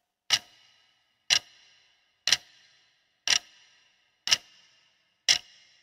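A clock ticking: six sharp ticks about a second apart, each with a short ringing tail.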